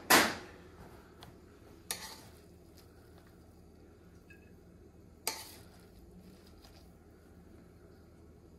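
Metal serving spoon knocking and scraping against a large aluminium cooking pot while scooping steamed rice onto a plate: a loud clank at the start, then two sharper knocks about two and five seconds in. A faint low steady hum sits underneath.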